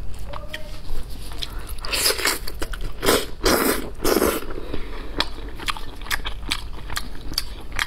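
Close-miked eating of spicy sauced lamb's head: wet clicks and smacks of mouth and gloved fingers on the meat throughout, with four louder sucking sounds between about two and four and a half seconds in as meat is sucked off a bone.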